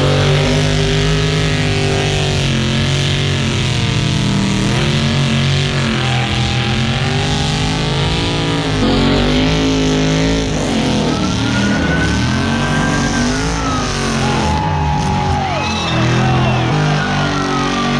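Background music mixed with car engines revving up and down.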